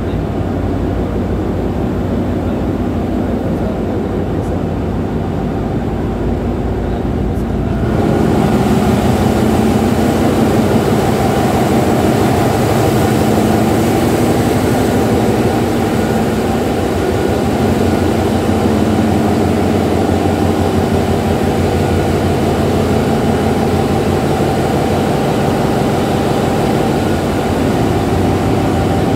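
Ship engine-room machinery running steadily: a dense, loud hum of engines and pumps. About eight seconds in it grows louder and hissier, near a large multi-cylinder engine.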